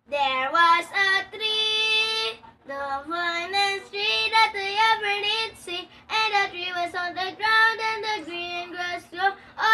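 Young girl singing a song unaccompanied, with held notes and smooth rises and falls in pitch, pausing briefly twice.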